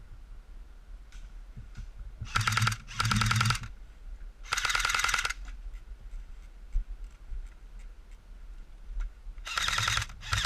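Airsoft guns firing short bursts of full-auto fire: rapid clicking bursts of under a second each, twice in quick succession a couple of seconds in, once more a moment later, and again near the end.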